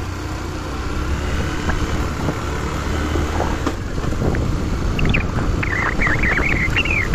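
A motor vehicle's engine running steadily with road and wind noise as it drives along. About five seconds in, high warbling chirps join it.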